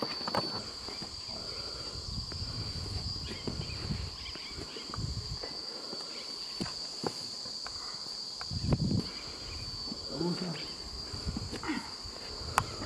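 Steady high-pitched drone of insects, with scattered scuffs, clicks and knocks of boots, hands and gear on rock as a man climbs.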